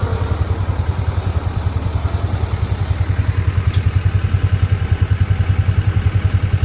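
Backhoe engine running steadily with an even, rapid low throb that grows a little stronger about halfway through.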